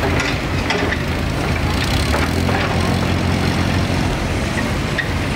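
Small forward-tipping site dumper's diesel engine running steadily as it drives slowly past.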